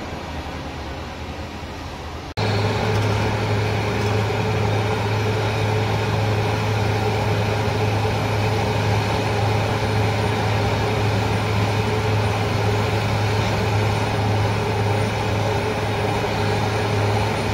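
Heavy road-works machinery running steadily: an asphalt cold milling machine and a dump truck idling beside it. The sound is a continuous low engine drone with a steady hum above it, and it becomes suddenly louder a little over two seconds in.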